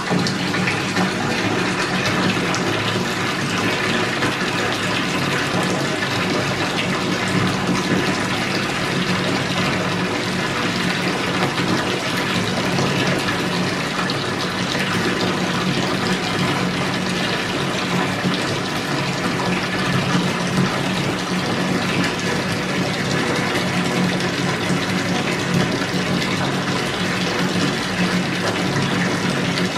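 Bath tap turned on and running steadily, its stream pouring into water already in the tub and raising foam.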